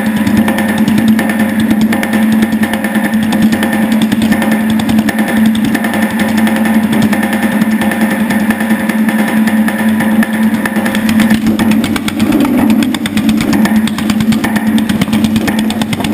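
Power hammer rapidly pounding an 18-gauge cold-rolled steel panel as it is fed under the ram, a fast, steady stream of metal blows over the machine's constant hum.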